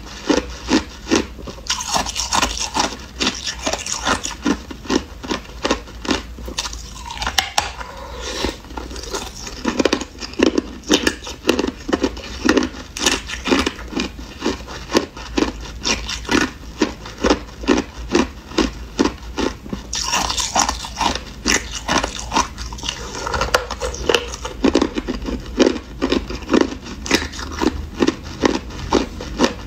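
Hard clear ice being bitten and chewed close to the microphone: a continuous run of sharp crunches, about two to three a second.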